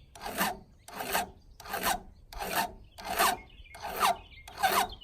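Hand file rasping in even back-and-forth strokes across the drags (depth gauges) of a chainsaw chain, about seven strokes spaced roughly two-thirds of a second apart.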